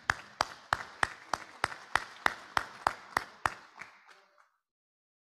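Applause led by one person clapping close to the microphone, with sharp, even claps about three a second over softer clapping from others. It dies away after about four seconds.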